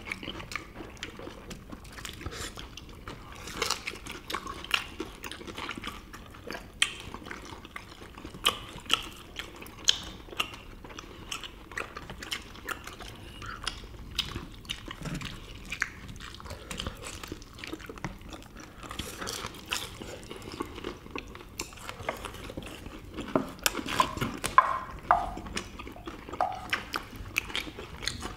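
Close-up eating sounds: people biting and chewing sweet and sour pork and other dishes, with frequent irregular clicks of chopsticks against plates and bowls. The clicks come a little thicker and louder near the end.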